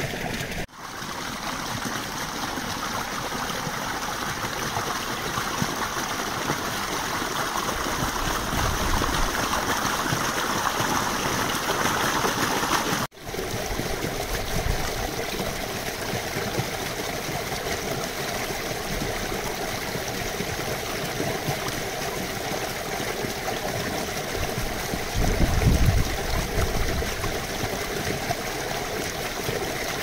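Brook of running water babbling and trickling steadily. It drops out abruptly twice, about a second in and about 13 seconds in, and there is a short low rumble about 25 seconds in.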